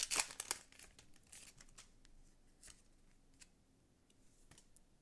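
Foil booster pack wrapper crinkling and tearing as it is pulled open, followed by a few faint, scattered clicks and rustles of the cards being handled.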